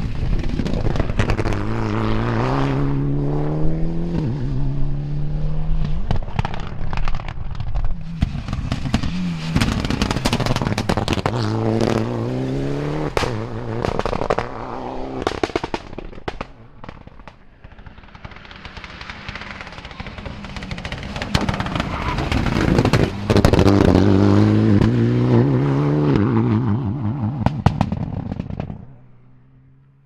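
Mitsubishi Mirage Proto rally car engine accelerating hard. Its pitch climbs and drops back with each gear change, and the exhaust lets off a stream of crackles, pops and bangs. A quieter spell comes about two-thirds of the way through, then the car is loud again as it passes a second time. The sound fades out near the end.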